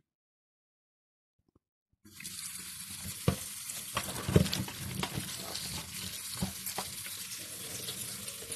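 Kitchen tap water running into a plastic colander full of lingonberries, starting suddenly about two seconds in, with a hand stirring the berries and a few sharp clicks and knocks among them.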